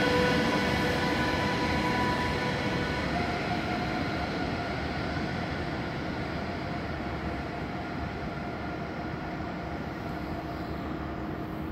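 DB Class 101 electric locomotive and its Intercity coaches moving away: a whine of several steady pitches over rail rumble, fading steadily as the train recedes.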